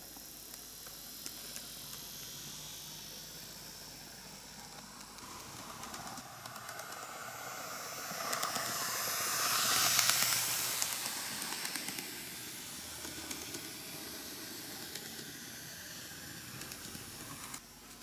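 KATO N-gauge EF81 300 model electric locomotive, its motor and wheels running on the rails. The sound grows as the locomotive approaches, is loudest as it passes about ten seconds in, then fades, with small clicks throughout, and drops suddenly just before the end.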